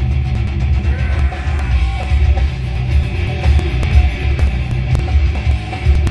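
Loud heavy rock music with distorted electric guitar, heavy bass and a pounding drum kit, played back at high volume.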